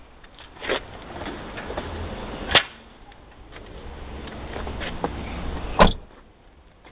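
Toyota 7M-GTE engine giving three loud, sharp metallic knocks a couple of seconds apart, with fainter clicks in between, which the owner takes for rod knock from a worn connecting-rod bearing.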